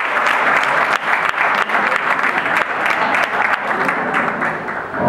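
Audience applauding: many hands clapping in a dense, steady round that eases off near the end.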